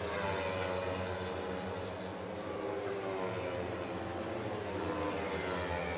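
Race motorcycle engine heard through the onboard camera, its pitch falling over the first couple of seconds, holding, then rising again toward the end: revs dropping into a corner and climbing as the bike drives out.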